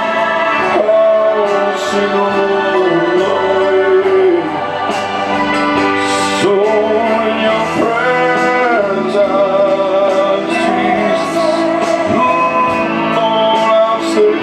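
Gospel worship music: a sung melody of long held, wavering notes over sustained instrumental chords.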